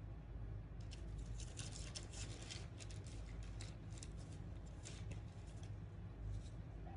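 Faint scratchy clicks and rustles of a metal crochet hook catching and pulling yarn through stitches, coming quickly from about a second in until past five seconds, with a couple more near the end. A low steady hum lies underneath.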